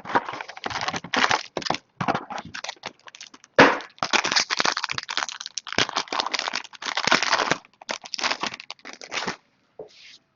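Plastic shrink wrap crinkling and tearing as a sealed box of trading cards is opened, in rapid irregular bursts with a sharp crack about three and a half seconds in.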